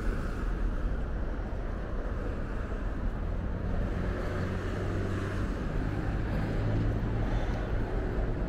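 Steady road traffic at a busy intersection: engines and tyres running together, with a low engine hum swelling in the second half.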